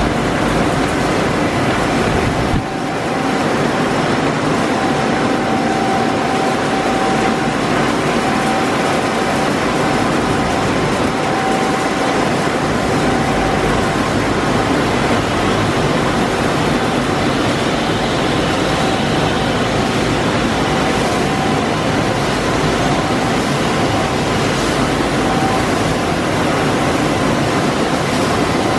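Loud, steady noise of a running PE extrusion coating line's machinery, with a thin steady whine on one note over it. The level dips briefly a little over two seconds in.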